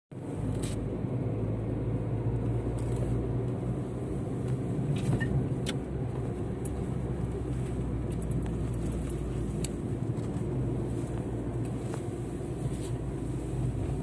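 Car engine and tyre noise heard from inside the cabin while driving, a steady low hum with a few faint light clicks.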